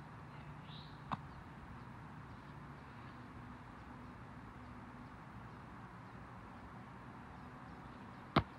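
Football slapping into a catcher's hands: one loud, sharp smack near the end as a long snap arrives, and a lighter smack about a second in. Quiet open-air background with a brief bird chirp just before the first smack.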